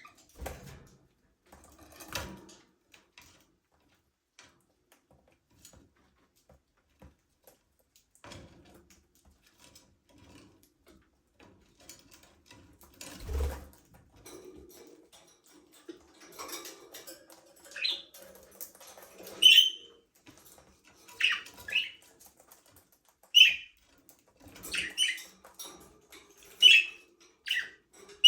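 Budgerigars in an aviary: scattered soft knocks, rustles and wing flutters, with one low thump about halfway in. Then short sharp chirps start and come more and more often.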